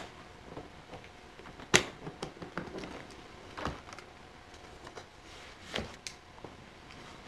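Handling noises: a few sharp clicks and knocks with softer small sounds in between, the loudest click coming a little under two seconds in.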